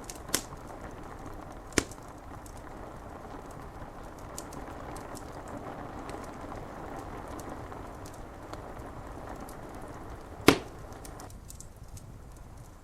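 Wood fire crackling, with three sharp pops, one a little after the start, one about two seconds in and a loud one near the end, over a steady hiss of rain on the window glass. The hiss drops back shortly after the last pop.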